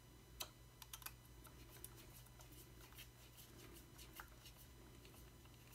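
Faint, scattered small clicks as a 2 mm hex driver works the set screws in a 3D-printed XT90 plug bracket. The sharpest click comes about half a second in, with a few lighter ticks over the next few seconds.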